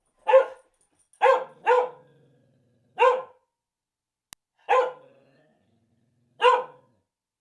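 A dog barking six times in single, short barks, irregularly spaced, with silence between them.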